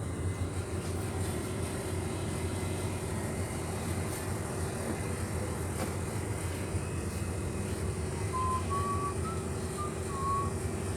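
Steady low hum of an idling vehicle engine, with a few short high whistled notes about eight to ten seconds in.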